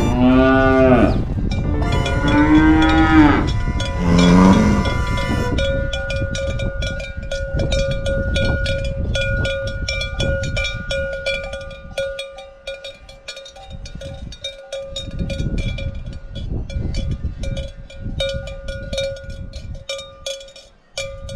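Cattle mooing, three long calls in the first five seconds, then cowbells ringing on with irregular clanks as the herd grazes.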